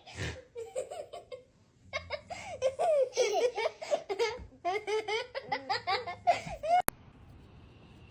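A person laughing hard in repeated bursts of quick, breathy syllables, which cut off abruptly near the end.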